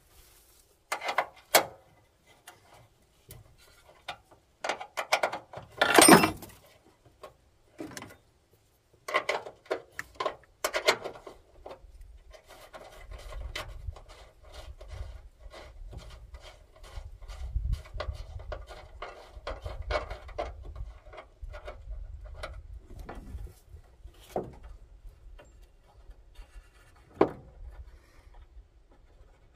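Irregular clicks, knocks and rattles of tools and parts being handled, with one loud clatter about six seconds in. From about twelve seconds in, a low rumble runs under continued small clicks.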